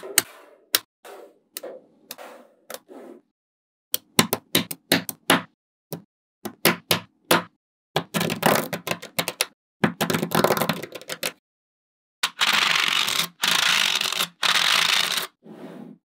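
Small magnet balls clicking and snapping together as slabs of them are joined, folded up and stacked. Sharp separate clacks come first, then, about halfway through, longer runs of rapid clattering.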